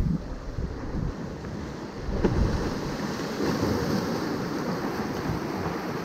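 Small waves washing and splashing over the jetty's rocks, with wind buffeting the microphone. The surge of water grows louder about two seconds in.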